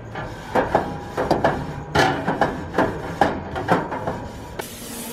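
Grates of a gas barbecue grill being scraped clean with a long-handled grill tool: about a dozen quick, rasping strokes with a metallic ring, roughly three a second. Near the end a steady hiss begins.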